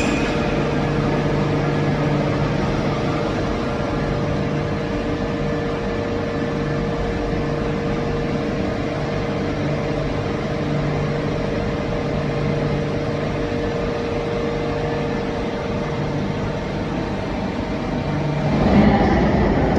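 Electric commuter train standing at an underground platform, its onboard equipment humming steadily with a pulsing low drone. Near the end, a rising rumble as another train approaches.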